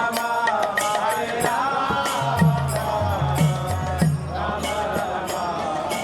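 Devotional kirtan music: voices chanting a mantra over a steady beat of hand percussion and a low drum.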